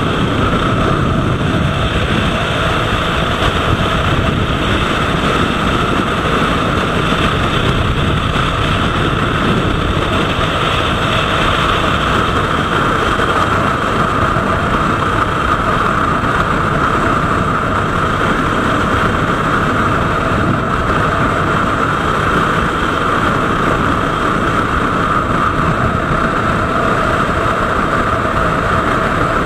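Motorcycle engine running steadily at cruising speed, with wind rushing over the bike-mounted camera's microphone.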